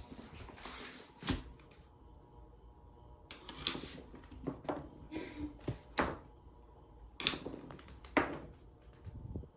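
Cat wand toy being jiggled: the small bells on it jingle, with rustling and light knocks, in several short bursts.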